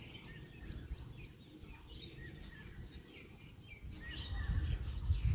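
Small birds chirping with many short, quick calls. Underneath is a low, uneven rumble that grows much louder about four seconds in.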